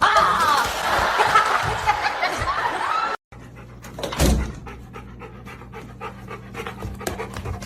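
A dog panting, loud and busy with short squeaky glides; about three seconds in the sound cuts abruptly to a quieter scene with a steady low hum, light clicks and one thump.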